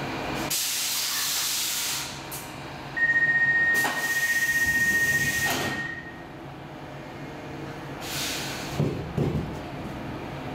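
Compressed-air hissing from a C14 metro car standing at the platform. A steady high beep lasts about three seconds over a loud rush of air, typical of the car's sliding doors closing. Near the end comes a shorter hiss and two knocks.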